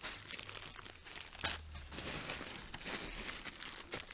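Clear plastic bags crinkling and rustling as bagged products are handled and lifted out. Many small crackles, with a sharper one about one and a half seconds in.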